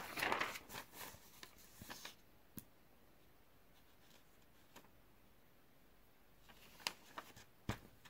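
Sheets of lined paper rustling as they are turned over and shifted for about two seconds, then scattered light taps and clicks of pen and paper, a few more close together near the end.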